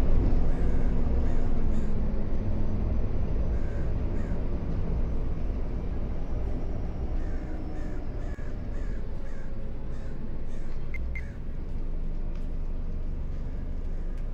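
A bus engine rumbling and slowly getting quieter, with faint short squawking calls every second or so over it.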